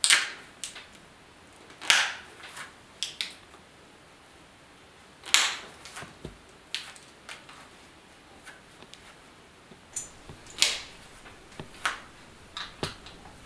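Flintknapping: a stone arrowhead being worked with a knapping tool, giving sharp clicking strikes at irregular intervals, four louder cracks among many lighter taps.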